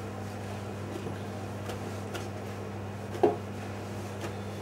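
Quartered mushrooms being dropped by hand into a stainless steel tray of chopped vegetables: a few faint soft knocks and one sharper one about three seconds in, over a steady low hum.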